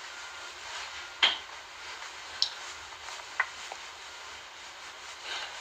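Steady faint hiss broken by four short clicks or taps, the loudest about a second in.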